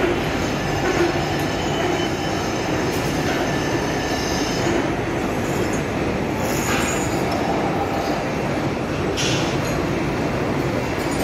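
Steady workshop machinery noise: a dense mechanical rumble with faint high steady whines and a couple of brief squeals.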